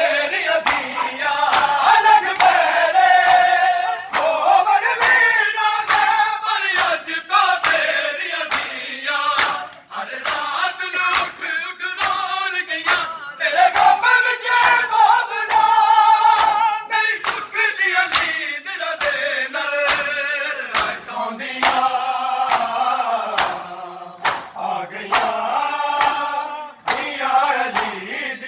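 Group of men chanting a noha (mourning lament) in unison, with sharp hand strikes of matam, chest-beating, keeping a steady beat under the chant.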